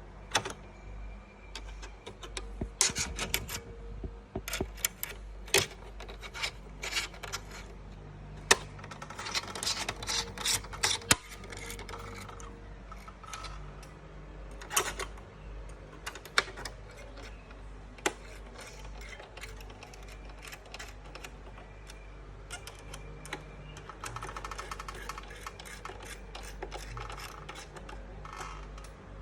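Irregular clicks, clacks and light metallic rattles of hands working on the hardware of a 2019 Mac Pro, with quick runs of clicks between about 3 and 11 seconds in. A steady low hum sits underneath.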